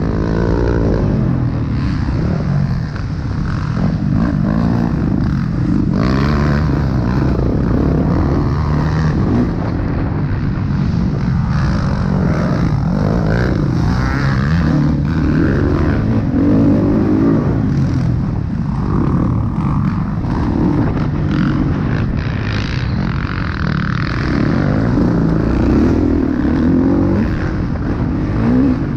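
Dirt bike engine running hard, heard from on board, its pitch rising and falling again and again as the rider revs and shifts through the gears.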